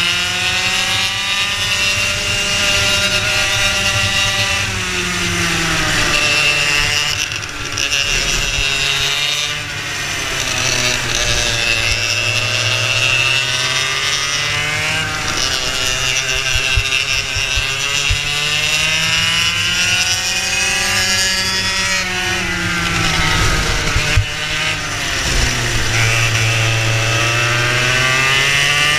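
A racing kart's engine heard onboard at full race pace, its pitch climbing on each straight and dropping as it lifts for the corners, several times over.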